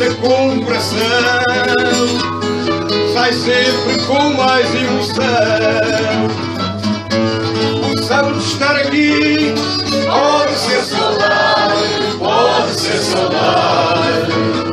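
Fado: a singer's voice with strong vibrato carrying the melody over plucked guitar accompaniment.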